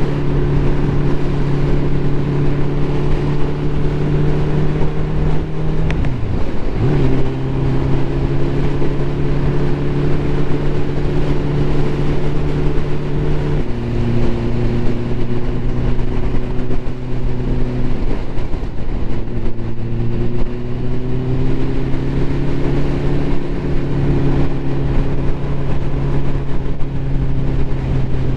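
Ducati motorcycle engine running steadily under way, with road and wind noise. Its pitch dips sharply and recovers about six seconds in, steps down about fourteen seconds in, and dips again around eighteen seconds before climbing, as with gear changes and acceleration.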